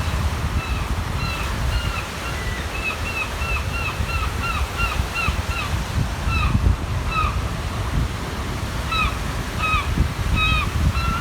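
A gull calling in a quick run of short, downward-hooking notes, about three a second, pausing and starting a second run near the end. Underneath runs a low rumble of wind on the microphone and waves on the shore.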